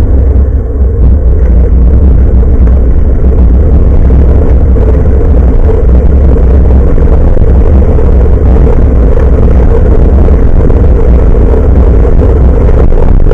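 Wind and road rumble on the built-in microphone of an action camera hanging from a bicycle's handlebars while riding: a loud, steady low rumble.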